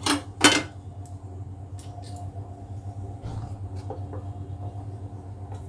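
Gas stove being lit: a sharp click of the knob and igniter about half a second in. A steady low hum follows, with a few faint taps.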